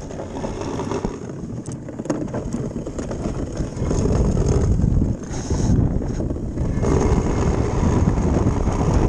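Wind buffeting the microphone of a camera aboard a sailing ice boat, with clothing rubbing over the microphone and a few light knocks. The rushing noise grows louder about four seconds in.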